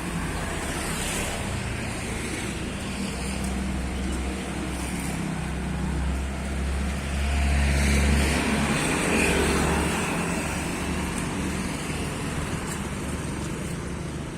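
Street traffic: motor vehicles running past in a steady wash of noise, one passing close and loudest about seven to nine seconds in.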